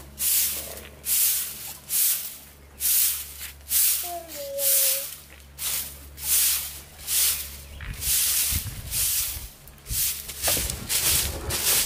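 Long-bristled broom sweeping a concrete path in regular swishing strokes, about one and a half a second. A short falling whine is heard about four seconds in.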